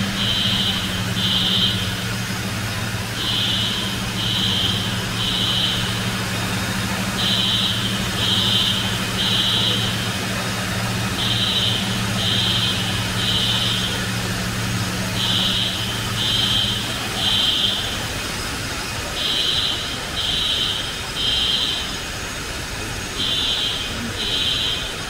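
Fire alarm sounder beeping in groups of three, repeating about every four seconds: the three-pulse evacuation signal. Under it is the steady rush of high-expansion foam generators discharging, with a low hum that stops about seventeen seconds in.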